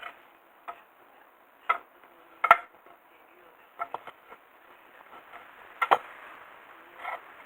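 Scattered clicks and knocks of tools or parts being handled during a gear-oil change, about eight in all, the loudest about two and a half seconds in.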